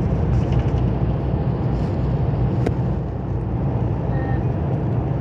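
Steady low rumble of a car driving at road speed on asphalt, heard from inside the cabin: engine, tyre and road noise.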